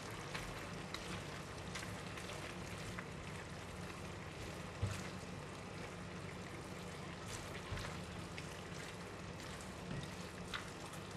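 Faint, steady sizzling of tofu skin and black fungus braising in a stainless steel wok while a silicone spatula stirs them, with a few soft knocks of the spatula against the pan.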